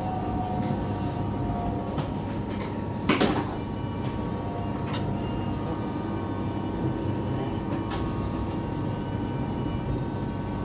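Interior of a moving regional passenger train: a steady running rumble with a thin steady whine. A sharp knock about three seconds in is the loudest sound, with a few fainter clicks later on.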